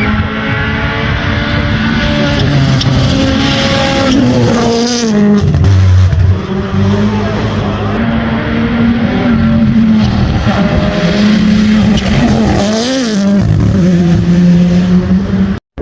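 Racing car engine running hard at high revs, its pitch holding high with sharp drops and climbs again around five and thirteen seconds in.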